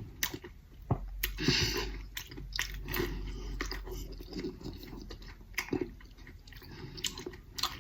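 A person chewing and biting eggplant close to the microphone: irregular wet smacks and squishes, with a louder run of bites about a second and a half in.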